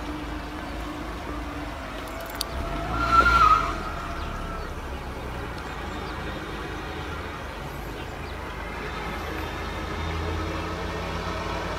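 Remote-control net-laying boat's motor running as it comes back across the water, a steady low hum that grows a little louder near the end. About three seconds in, a brief high-pitched sound rises over it.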